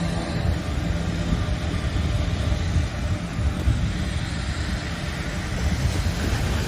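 Boeing C-17 Globemaster's four turbofan jet engines running at the runway end: a loud, steady rumble and rush of jet noise, with a low hum in the first second or so.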